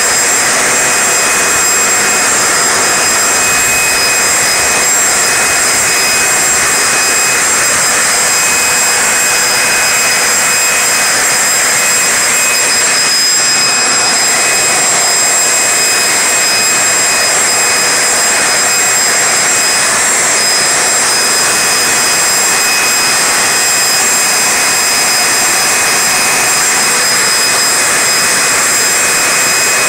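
Leaf blower running flat out, a loud steady rush of air with a high whine held on one pitch, blowing sawdust and loose dirt off the ground.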